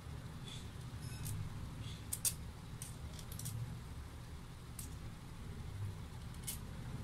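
A few short, scattered clicks and taps from hands working on the plastic underside of a laptop, over a low steady hum.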